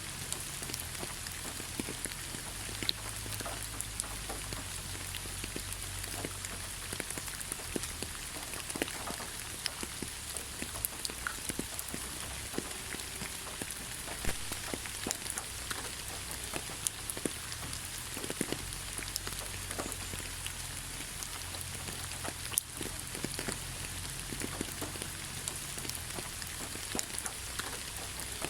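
Steady rain falling on leaves: a constant hiss with many separate drops tapping.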